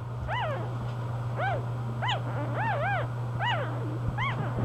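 Newborn English bulldog puppy squeaking: about seven short, high cries, each rising and falling in pitch, over a steady low hum.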